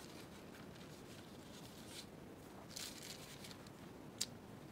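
Faint rustle of a paper sheet being slid and lined up on a plastic paper trimmer, with a single sharp click a little after four seconds in.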